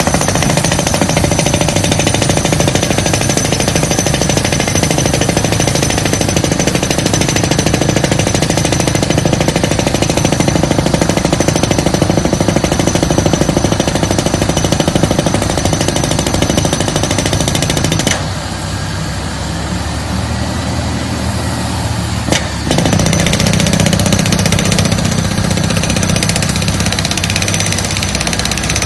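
Yonda YDR30A drill rig drilling with its percussive hammer: a loud, very rapid hammering. About two-thirds of the way through the hammering stops, leaving the rig's engine running more quietly. After a sharp click a few seconds later, the hammering starts up again.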